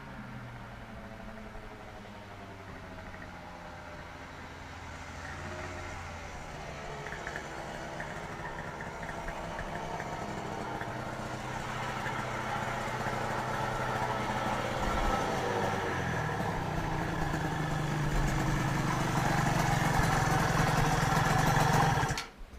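Yamaha TZM 50cc two-stroke single through a DGW expansion chamber, on track: the revs drop off at the start, then the engine builds steadily louder and higher under throttle for most of the time, and the sound cuts off suddenly near the end.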